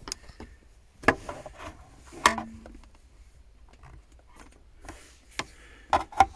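A few scattered sharp clicks and knocks of handling, with three coming close together near the end.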